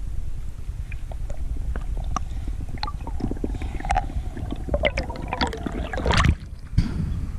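Water noise on a diver's camera: a steady low rumble with scattered small clicks and gurgling, and a louder rush of noise a little after six seconds in.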